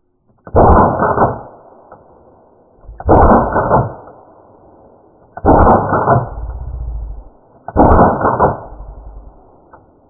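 Four shots from a Tokyo Marui airsoft Desert Eagle pistol, heard slowed down: each is a dull, drawn-out bang about a second long that starts with a click, spaced about two and a half seconds apart.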